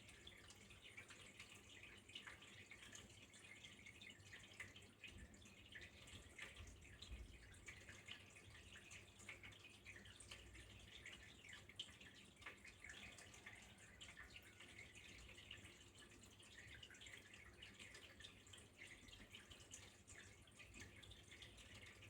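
Faint trickling water: a steady, dense patter of small drips and splashes.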